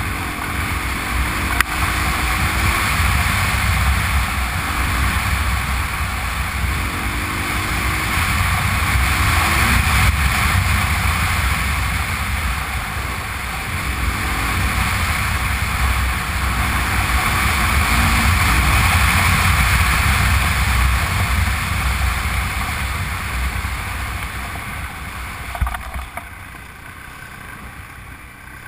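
Honda Transalp's V-twin engine running as the motorcycle rides along a gravel track, under wind rushing over the camera microphone. The sound drops noticeably in level near the end.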